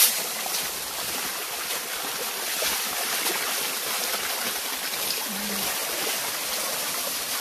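Running water pouring and splashing steadily as bunches of minari (water dropwort) are swished through it to wash them, with a brief sharp hit at the very start.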